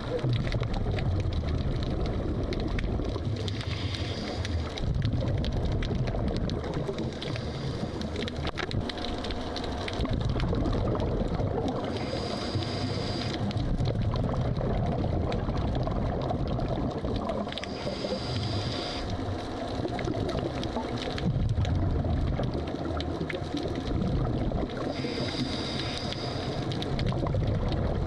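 Scuba diver's regulator breathing heard underwater: a short hissing inhale about every five or six seconds, with exhaled bubbles gurgling and rumbling in between.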